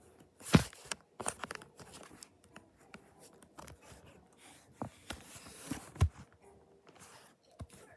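Handling noise on a phone's microphone: fingers rubbing and bumping the phone, with sharp knocks about half a second in and again about six seconds in.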